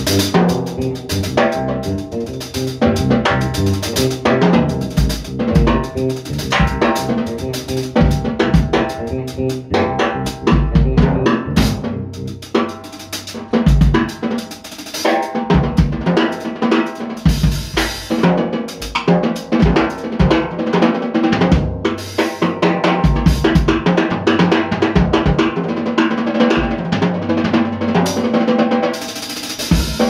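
Jazz drum kit played live in a busy, drum-led passage: rapid snare strikes and deep bass drum hits with ringing cymbals.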